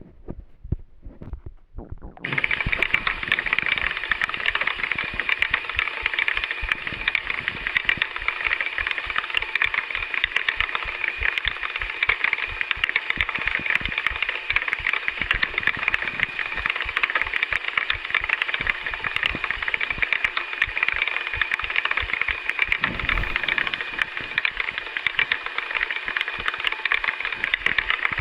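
A steady, dense mechanical rattle made of rapid clicks, starting about two seconds in and running on evenly.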